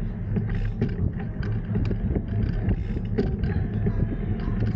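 Ride noise from a small-wheeled bike rolling over brick paving: a steady low hum with frequent small clicks and rattles as the wheels cross the paving.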